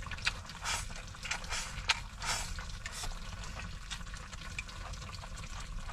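Utensils clicking and scraping lightly against cookware with eggplant and pork in it, a few irregular taps and soft scrapes about every half second, over a low steady hum.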